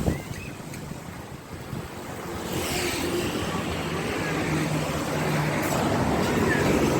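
Road vehicle approaching and passing close by: engine and tyre noise swelling from about two and a half seconds in and staying loud to the end, after a brief thump at the very start.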